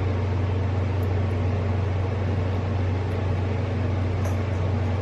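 Room tone: a steady low hum with an even hiss over it, unchanging throughout.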